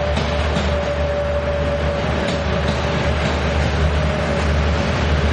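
Taiwan Railways DMU2800+DMU3000 diesel multiple unit passing close by, a steady loud rolling rumble with wheels clacking over rail joints. A steady whine runs along with it and fades toward the end.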